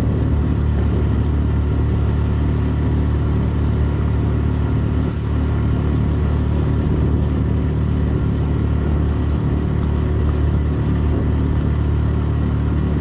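New Mercury 2.5 hp outboard motor, on its break-in run, running steadily and pushing a small duck boat along.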